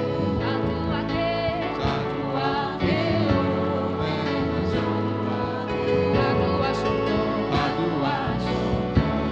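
Gospel worship music with voices singing over sustained held chords.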